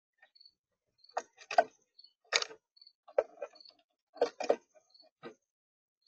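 Irregular sharp taps and knocks, in small clusters, of birds pecking at a bird feeder. A faint, short, high peep repeats about once a second behind them.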